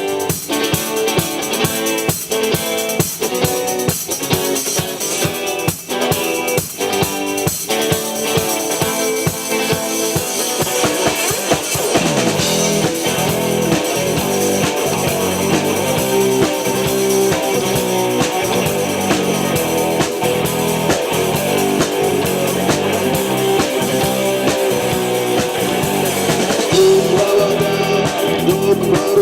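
Rock band playing an instrumental intro on drums and guitar, with a steady beat. About twelve seconds in, a rising slide leads the fuller band in.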